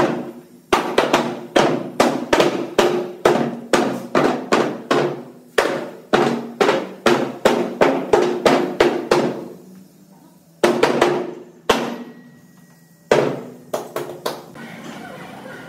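Hammer blows on wood, struck repeatedly at about two a second, some in quick pairs, then a pause and a few slower, separate blows near the end.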